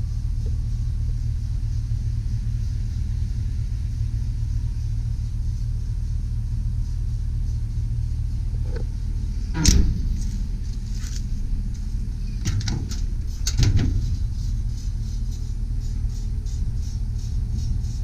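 Metal utility-body compartment door latched and swung open, with a sharp clank about ten seconds in and a few more clunks and rattles of the door a few seconds later, over a steady low rumble.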